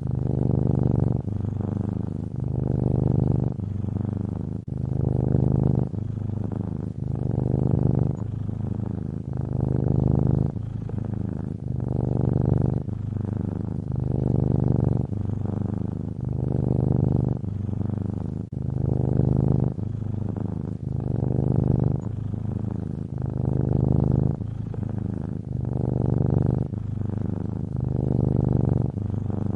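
Domestic cat snoring in its sleep: a low buzz that swells and fades with each breath, about one breath every two seconds.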